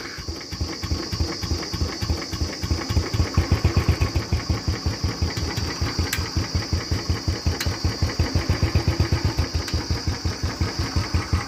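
Royal Enfield Bullet 350's single-cylinder engine idling through its stock silencer, just after starting, with an even thump about five times a second.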